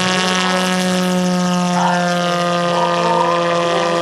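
Electric motor and propeller of a giant-scale RC autogyro (Hacker A150 brushless outrunner on 12S LiPo) running at high power for the takeoff, a loud steady whine held at one pitch.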